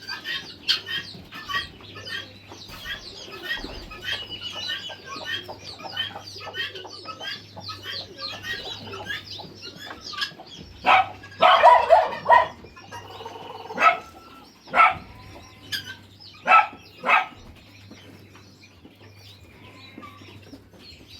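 A poultry flock of chickens clucking and calling, with many short calls overlapping. About eleven seconds in there is a loud burst of squawking commotion, followed by a few loud single squawks before the flock quietens.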